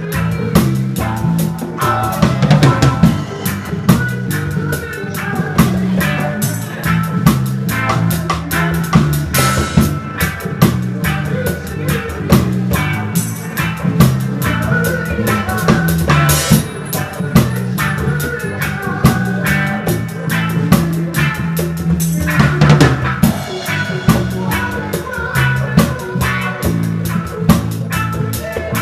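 Reggae band playing live, heard from beside the drum kit: the drums are loud and up front, with kick, snare and rim hits over a low bass line that moves in steps.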